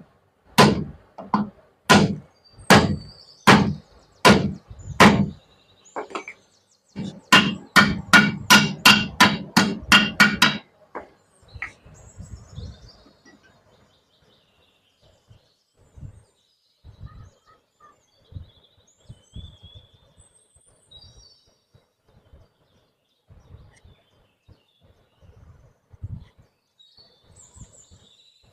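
Hammer blows on metal during restoration of a sugarcane juicer: a run of separate strikes about one every 0.7 seconds, then after a short pause a faster burst of about a dozen blows. After that, only faint occasional taps and a few bird chirps.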